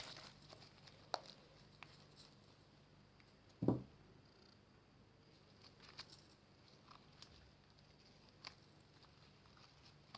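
Hands playing with fluffy slime: faint scattered sticky clicks and small pops, with one louder soft thump a little after three seconds in.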